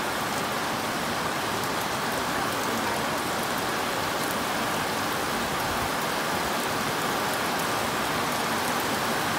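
Steady rainfall, an even hiss that holds at the same level throughout.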